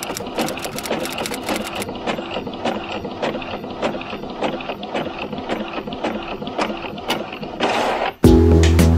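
Epson L565 inkjet printer printing a page: a run of quick, irregular mechanical clicks and whirring as the print head and paper feed work, with a short rushing noise near the end. Music cuts in suddenly about eight seconds in.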